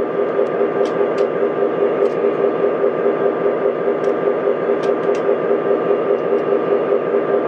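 A steady electrical hum and hiss with a fast, even pulse, with a few faint light clicks as small metal milk cans are set into the roof hatch of a Lionel operating milk car.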